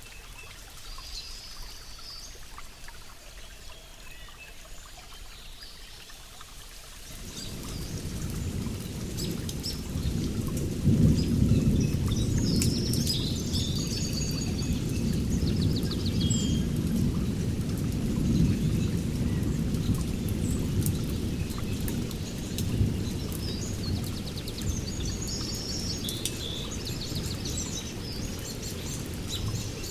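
Birds chirping over rain, with a low rumble of thunder that comes in about seven seconds in, is loudest a few seconds later, and keeps rolling.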